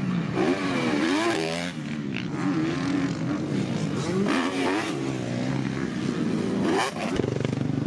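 Motocross dirt bike engine revving up and down as it is ridden, its pitch rising and falling again and again with the throttle.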